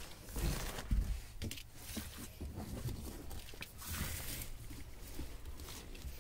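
Handling noise of hard-rinded figleaf gourds being moved and set down on an oilcloth-covered table: scattered knocks and rustles, with a couple of duller thumps about a second in.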